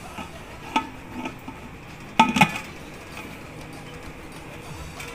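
Stainless steel pressure cooker lid being fitted onto the pot, metal clinking against the rim: one clink about a second in and a louder cluster of ringing clinks a little after two seconds.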